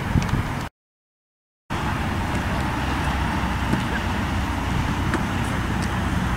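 Steady outdoor background noise: wind on the microphone over distant road traffic, with a few faint clicks. The sound drops out completely for about a second near the start.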